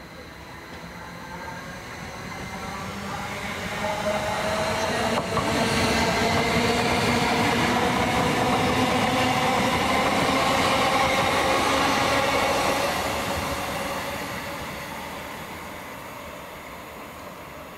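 Northern Class 333 electric multiple unit passing at speed. Wheel-on-rail noise and a whine of several steady tones build up over about six seconds, hold for about six seconds as the train runs by, then fade away.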